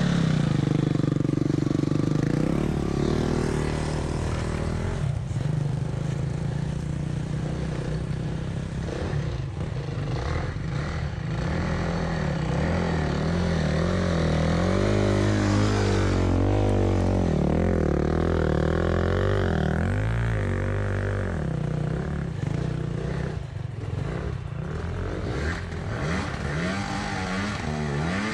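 Enduro dirt bike engines revving, the pitch rising and falling again and again as riders climb a steep slope.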